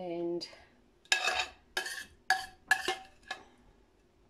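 A spoon scraping and knocking against a stainless steel pan while sauce is spooned out, about five ringing strokes half a second apart.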